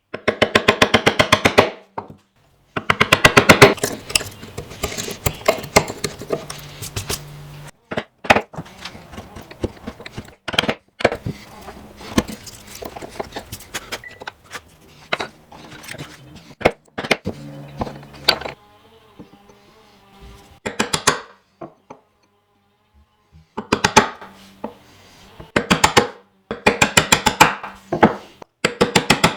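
Hand tool work on walnut during a bow tie inlay: quick runs of sharp taps and knocks on wood, several to a second, in bursts of one to two seconds with short pauses between.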